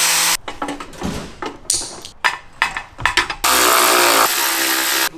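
A cut-off wheel grinding into the radiator's mounting tabs stops about half a second in. A run of short, uneven clanks and clicks follows, and about three and a half seconds in a cordless power tool spins a socket, running loudly for over a second.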